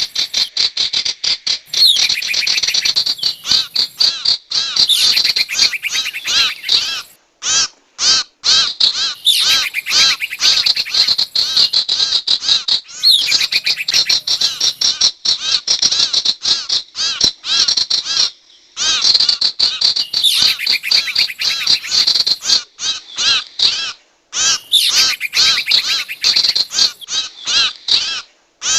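Sirtu bird call played as a trapping lure: rapid runs of sharp, high chirping notes in long phrases, broken by a few short pauses.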